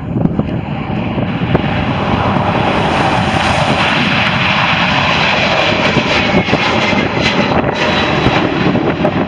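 Boeing 767's twin jet engines at takeoff power, a loud steady rush with a faint whine that slowly falls in pitch as the aircraft goes by.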